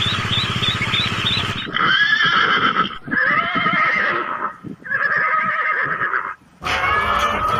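A large flock of ducklings peeping, then, after a cut, a horse neighing three times in a row. A flock of hens clucking begins near the end.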